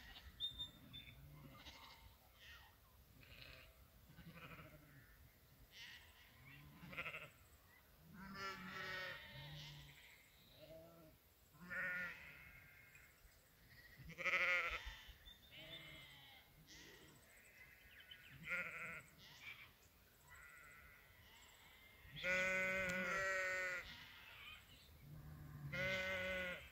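Sheep bleating: a string of separate calls, several short, and one longer, louder bleat of about two seconds near the end.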